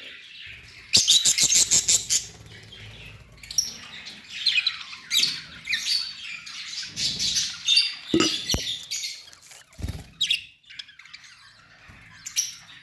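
Budgerigars chirping and squawking in short, high calls, with a fast run of chirps about a second in. A few dull low thumps in the second half.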